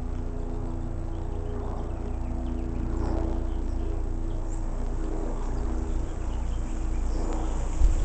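A steady low mechanical hum.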